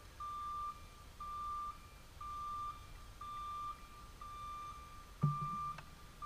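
Electronic metronome beeping steadily, one half-second beep each second, setting the tempo for marching band rehearsal. A brief low sound comes in about five seconds in.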